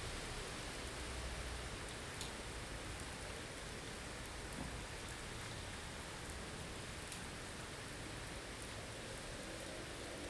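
Blizzard ambience: a steady rush of wind and driven snow with a pattering hiss, and a few faint ticks.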